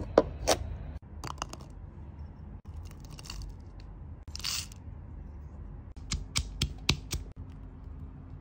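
A chef's knife cutting fresh chilies on a cutting board in a few sharp chops. Later comes a quick run of about five hard strikes, a stone pestle pounding chilies and garlic in a granite mortar.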